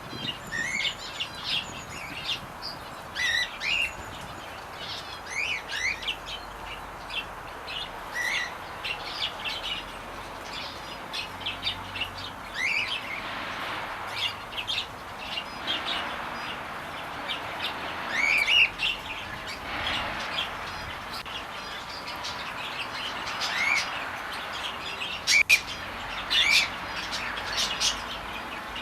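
Many small aviary birds chirping and calling at once: quick short notes and upward-sweeping calls overlapping, over a steady hiss.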